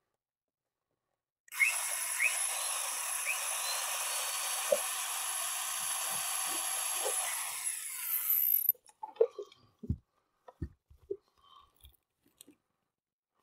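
Electric drill boring a screw hole into wood through a flood light's mounting base, running steadily for about seven seconds with a thin high whine, then stopping suddenly. A few light knocks and clicks follow.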